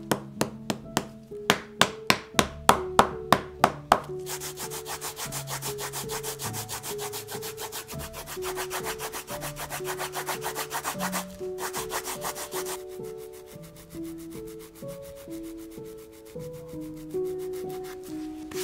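Shoemaker's hand work on leather: a quick run of sharp taps, about four a second, then rapid rhythmic rubbing strokes that go on for several seconds before turning fainter. Background music plays throughout.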